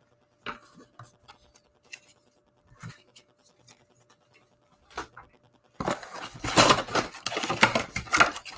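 A few light taps and clicks of trading cards being handled and set down. About six seconds in, loud, continuous tearing and rustling begins as a cardboard trading-card hobby box is torn open.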